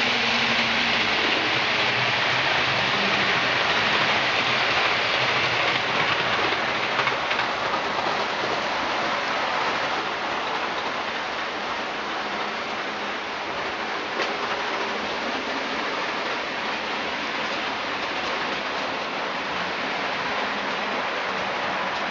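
Model train running on the layout's track: a steady rushing hiss of wheels and motor, easing off about ten seconds in.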